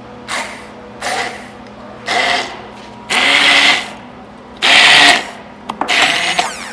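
Hand-held immersion blender switched on in short pulses, about six bursts of motor whine, the later ones longer and louder, as it chops dried banana peels in a glass beaker.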